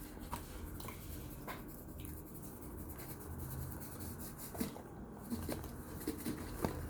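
Baked cornstarch chunks being put into a bowl by hand: faint scattered clicks and light scraping, with a few sharper taps near the end.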